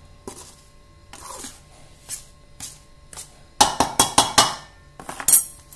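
Perforated steel spoon scraping and clinking against a stainless steel mixing bowl while stirring dry flour. About three and a half seconds in comes a quick run of sharp clinks, with one more near the end.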